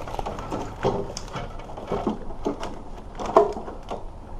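Plastic wiring-harness connectors and loom knocking and rubbing as they are fed up through an opening by hand: irregular light clicks and scrapes, with one sharper knock near the end.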